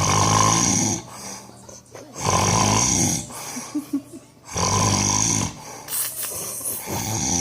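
A sleeping man snoring loudly, one snore about every two and a half seconds: three full snores, with a fourth starting near the end.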